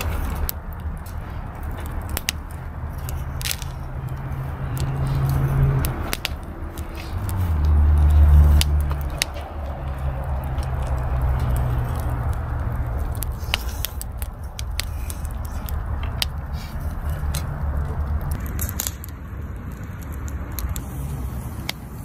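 Firewood burning in a hot-running metal fire pit, crackling with scattered sharp pops as the logs burst. Underneath runs a low rumble that swells twice, loudest about a third of the way in.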